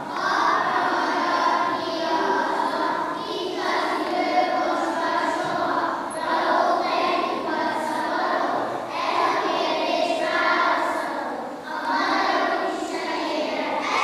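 Children's choir singing together, phrase after phrase with short breaks between phrases.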